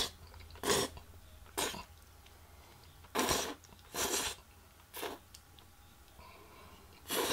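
A person slurping black bean noodles (jajangmyeon) in six short, hissy slurps about a second apart, one of them longer than the rest, with some chewing in between.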